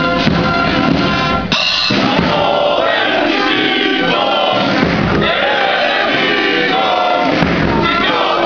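Military band music for about a second and a half, then a column of marching soldiers singing a marching song in loud unison, in phrases of about a second each.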